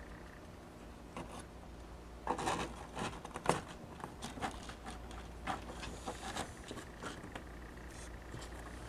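Kittens scuffling on carpet, their paws and claws making short scratchy scrapes and clicks that start about two seconds in and come irregularly, loudest about a second later.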